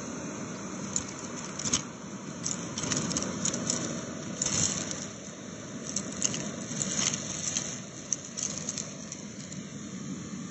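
Vacuum cleaner running steadily with a crevice tool on carpet, sucking up rice and bath salt grains that crackle and click irregularly as they rattle up the hose.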